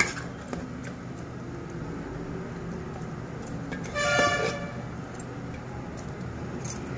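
Cooked curry being scooped and scraped from a pot into a stainless steel bowl: a metal clank at the start, a few light clicks, and a brief bright tone about four seconds in, over a steady low hum.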